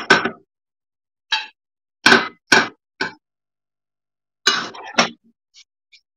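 Short knocks and clanks of a serving utensil against a stainless steel pot and a plate as pasta is dished out. There are about eight, unevenly spaced, with a quick pair just after two seconds and another pair near the fifth second.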